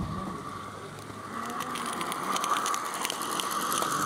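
16mm-scale live-steam garden railway locomotive running close by: a steady hiss of steam with quick, irregular clicking from its wheels and motion, growing louder about a second in.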